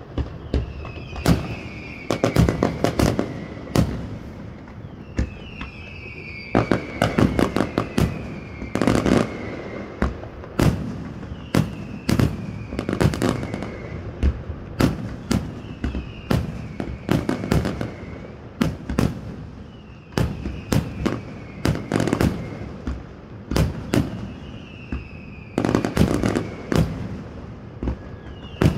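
Aerial fireworks display: shells bursting in rapid clusters of sharp bangs and crackles, with whistles that slide down in pitch every couple of seconds.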